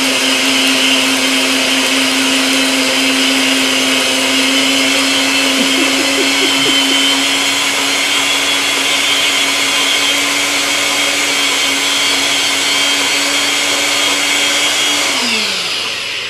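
Small personal blender running steadily at full speed, grinding toasted whole spices, garlic, turmeric and a little water into a curry paste. Its motor whine winds down, dropping in pitch, near the end as it is let go.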